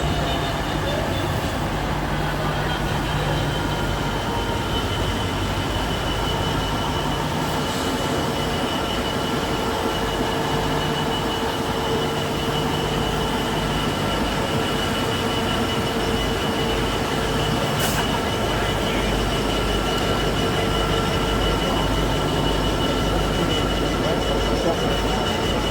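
Freight train wagons rolling past on the rails, a continuous rumble with a steady high-pitched wheel squeal.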